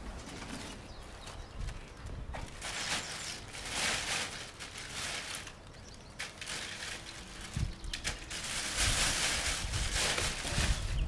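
Thin plastic carrier bag rustling and crinkling in uneven swells as pine cones are put into it and the bag is handled, with a few light knocks from the cones.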